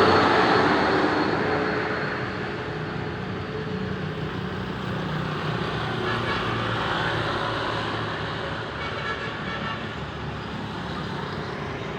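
A bus passes close by and its noise fades over the first couple of seconds, leaving steady road traffic with engine hum.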